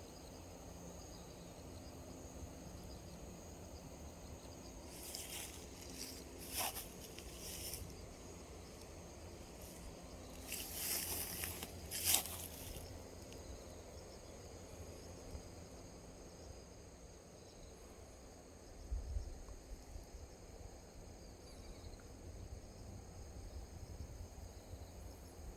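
Steady high insect chirring, like crickets, with a few brief rustles about five seconds in and again around eleven to twelve seconds in.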